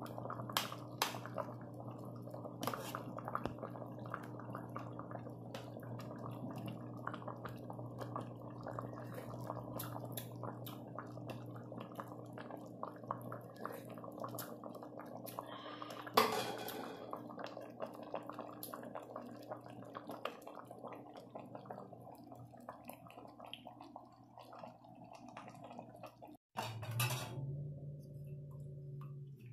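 A metal ladle and utensils clinking and scraping against an aluminium cooking pot as soup is stirred and served, with liquid sloshing, over a steady low hum. One louder clatter comes about halfway through.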